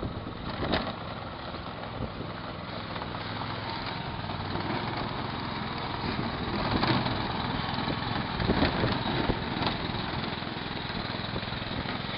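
Small engine of a child-sized miniature tank running steadily as it drives, with a few sharp knocks.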